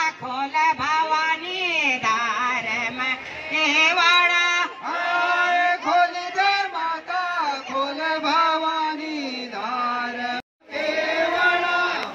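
A group of women singing a folk song together in a chanting style, with long, gliding notes. The sound cuts out for an instant about ten seconds in, then the singing resumes.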